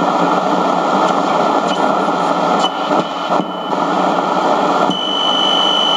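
Radio Shack 12-795 multiband receiver hissing with static as its dial is tuned between stations. A steady high whistle comes in about five seconds in.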